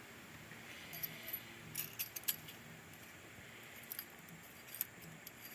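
Scattered light metallic clinks and jingles of small metal parts being handled, several quick clinks about two seconds in and a few more near the end.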